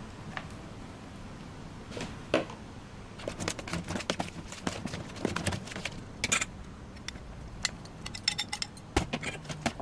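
Metal spoon scraping and clinking against a plastic basin as shredded vegetables are tossed in a wet dressing, with quick irregular taps that grow more frequent from about three seconds in.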